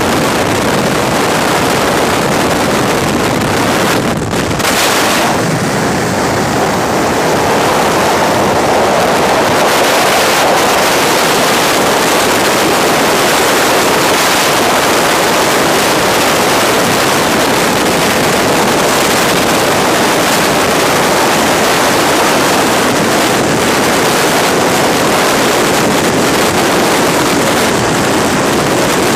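Loud, steady rush of freefall wind over a skydiver's helmet-camera microphone, with a brief dip about four seconds in.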